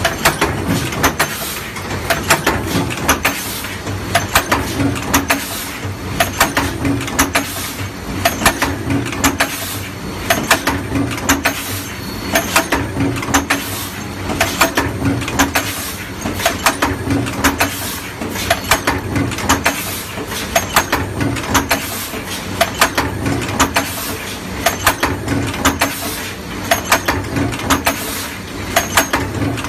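Stamping press running a multi-station deep drawing die that forms small seamless metal cups: a steady machine hum with a clatter of metal clicks and knocks at each press stroke, repeating in an even rhythm.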